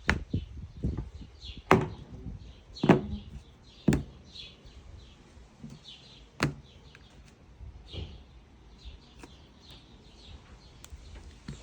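Scattered sharp knocks and taps, about five spread over the stretch, with faint high chirps, like bird calls, between them.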